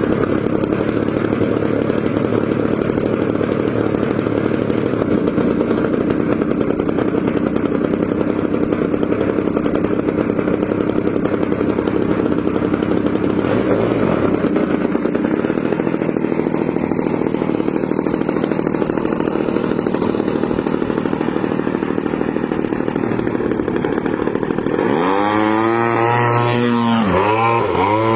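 RC model airplane's propeller engine running at a steady idle, then opened up about three-quarters of the way through for the takeoff run, its pitch climbing sharply and then swinging up and down as the plane gets airborne.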